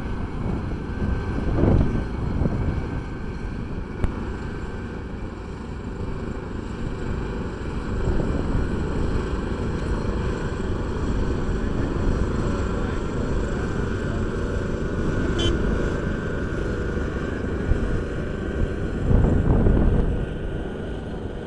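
Diesel engines of heavy road-paving machinery (an asphalt paver, a tipping dump truck and a loader) running steadily, with louder low surges about two seconds in and near the end.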